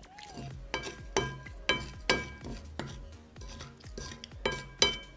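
Wooden spoon scraping and knocking against a glass plate while gathering cookie crumbs: a string of about seven sharp clinks, several leaving a brief ringing tone from the plate.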